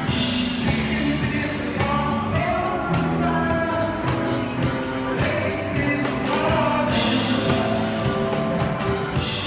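Live music from a drum kit and an electronic keyboard played together without a break.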